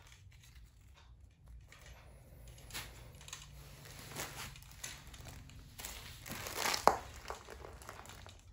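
Grip tape being wound around a fishing pole's handle: the plastic tape and its backing strip rustle and crinkle as it is pulled and wrapped, with one sharper, louder crackle about seven seconds in.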